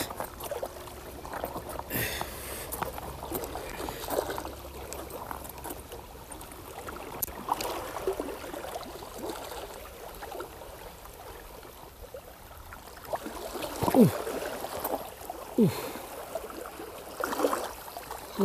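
Water lapping and trickling at the shoreline, with scattered small clicks and knocks from handling a fishing rod and reel. About three-quarters of the way through come two brief sounds sliding down in pitch.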